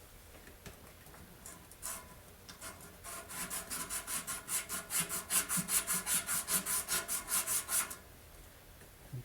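Sandpaper rubbed briskly back and forth by hand over a snowthrower shaft, about five strokes a second, starting about three seconds in and stopping near the end. It is cleaning old rust and grime off the shaft so the bearing can be pulled off.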